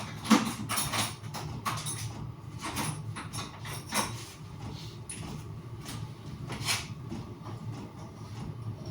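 Irregular knocks, clicks and scrapes of parts being handled and taken apart, busiest in the first few seconds and sparser after, over a steady low hum.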